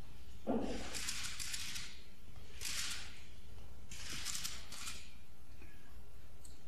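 Cameras firing at a runway show: shutter clicks with motor-drive film advance in about four short bursts, after a dull thump about half a second in.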